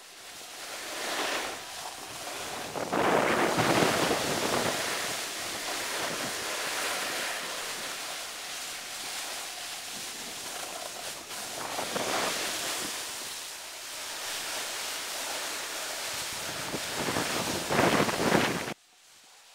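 Wind rushing over the camera microphone, swelling and easing several times, loudest a few seconds in and just before it cuts off suddenly near the end.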